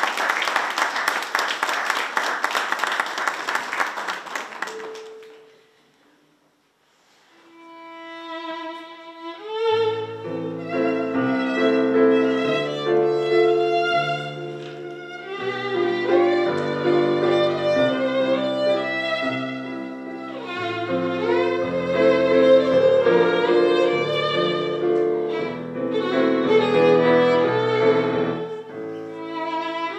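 Applause fades out over the first five seconds. After a short pause a violin begins a slow classical piece from about eight seconds in, playing sustained notes with vibrato over a piano accompaniment.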